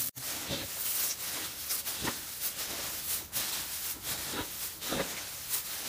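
Dry chopped straw and corn kernels being stirred by hand in a stainless steel basin: a rustling, rattling mix in irregular strokes, roughly two a second.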